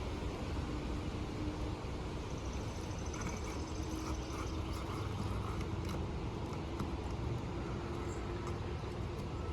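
Steady low outdoor rumble with a faint humming drone and a few light clicks.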